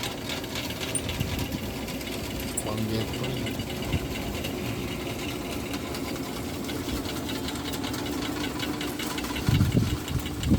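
A small engine running steadily with a fast, even knock, alongside indistinct voices.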